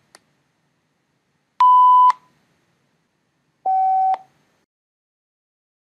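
Two short computer-generated sine-tone beeps, about two seconds apart. The first is the original signal; the second, slightly lower-pitched and a little quieter, is the same tone sampled below the Nyquist rate, so it is aliased down in pitch. Each beep starts and stops with a click.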